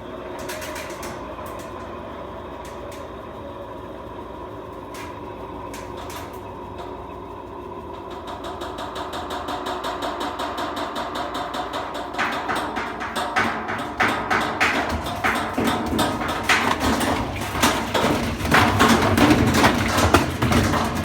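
Whirlpool high-efficiency top-load washer spinning its empty drum: a steady motor whine at first, then, from about halfway in, rapid knocking and rattling that grows louder as the tub goes out of balance. The banging is the sign of worn suspension rods and springs that no longer hold the tub steady.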